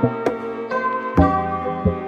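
Background music: plucked string notes over held tones, in an Indian classical style.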